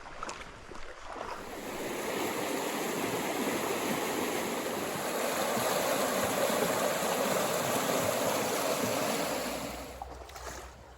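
Creek water rushing: a steady hiss that swells about a second in and fades near the end.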